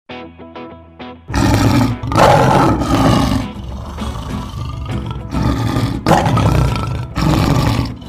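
A few notes of music, then, a little over a second in, a lion's roars in a series of loud bouts with short breaks between them, over background music.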